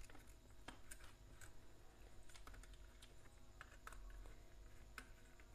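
Faint, irregular clicks and taps of a screwdriver and wire being worked at the terminals of a plastic switch board, as a wire is fastened under a terminal screw.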